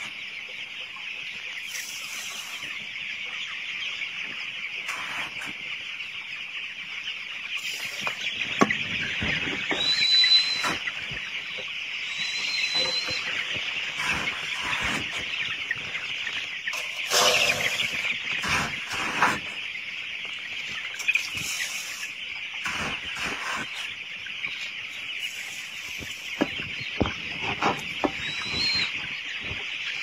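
A brood of young chicks peeping continuously in a dense chorus, with a few louder single chirps standing out. Occasional knocks and rustles come through, the loudest about halfway.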